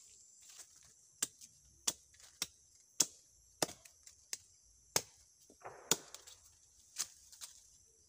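Machete blade chopping at a wooden stick, about a dozen sharp, irregular knocks roughly every half second, with a brief rustle of dry leaves a little before six seconds in. Insects keep up a steady high buzz underneath.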